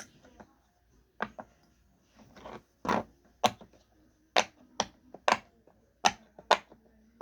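Bubbles of a silicone pop-it fidget toy being pressed one after another, giving about ten sharp pops at an uneven pace of roughly two a second.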